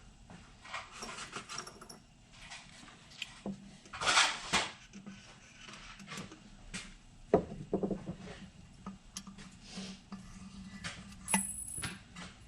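Metal clinks and scrapes of engine valves being handled and slid into the guides of a tractor cylinder head, with a louder scrape about four seconds in and a sharp clank a little past the middle.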